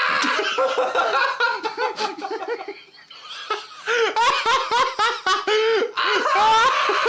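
Hearty laughter in quick repeated bursts. It dies down briefly about three seconds in, then picks up again.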